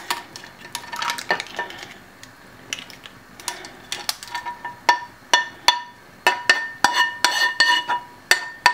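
Spoon scraping and knocking against a frying pan as clams, prawns and peas in sauce are spooned out into an earthenware casserole: a run of sharp metallic clinks, some with a brief ring, sparse at first and quicker after about halfway.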